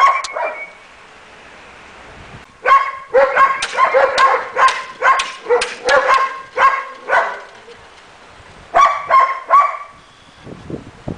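German Shepherd puppies barking in high yips: a couple at the start, then a quick run of about a dozen barks, a pause, and three or four more near the end.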